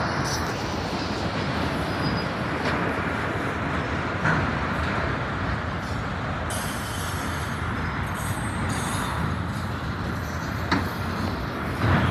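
Freight train of autorack cars rolling past close by: steady rumble of steel wheels on the rails, with a few sharp knocks as the cars go by.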